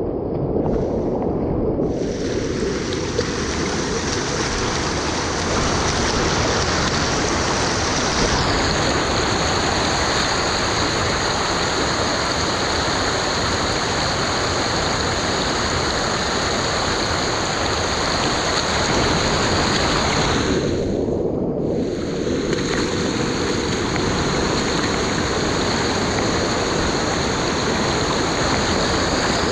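Loud, steady rush of water pouring over a dam, a continuous even hiss without a break.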